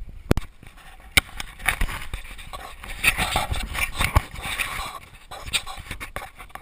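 Handling noise close to the microphone: irregular sharp knocks and clunks, with rubbing and scraping in between, loudest in the middle.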